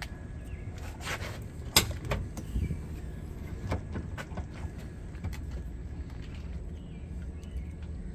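Walking outdoors with a handheld camera: scattered footsteps and handling taps over a steady low rumble, with a sharp click a little under two seconds in.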